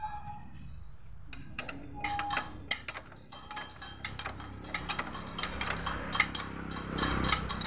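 Motorcycle drive chain and rear sprocket clicking and clinking as they are worked on by hand. The metal clicks come irregularly after a quiet first second and grow denser near the end.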